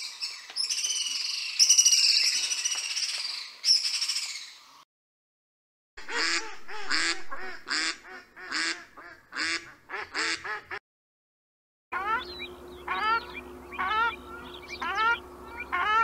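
Three sets of bird calls one after another, with short gaps between them. First a house swift's shrill twittering scream, then domestic ducks quacking about eight times, then a Brahminy duck (ruddy shelduck) giving a string of rising calls.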